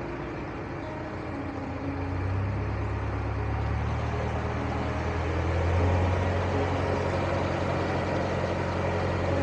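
A narrowboat's engine running steadily under way: a low, even hum that grows a little stronger a couple of seconds in.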